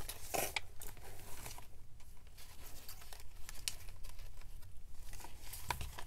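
Paper pages of a handmade junk journal rustling and crinkling as they are handled and turned, with scattered light taps and rustles.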